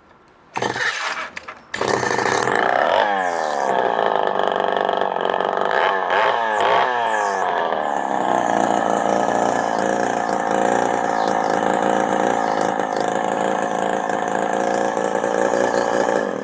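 Homelite XL Automatic two-stroke chainsaw powerhead starting: it catches about half a second in, falters briefly, then runs, revving up and down several times before settling to a steady run, and stops just before the end. It is firing and running on a freshly fitted spark plug and NGK plug cap.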